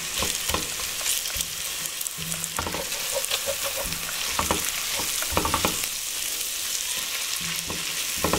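Diced carrots, celery and onion with garlic and herbs sizzling steadily as they sauté in olive oil in a pot. A spatula stirs them, with several short scrapes and knocks against the pot.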